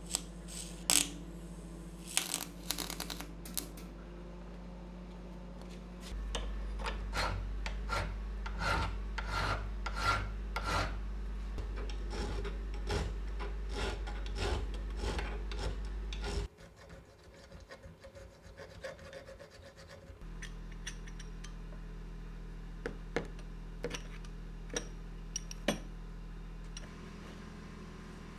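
A few seconds of wire-feed (MIG) welding crackle at the start. Then a hand file scrapes back and forth on the steel of a monkey wrench, about two strokes a second, dressing the welded-up metal back to shape for a tighter fit. The strokes become sparser in the last part.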